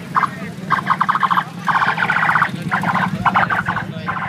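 A trilling whistle blown in a series of short and longer blasts, over the steady low hum of motorcycle engines.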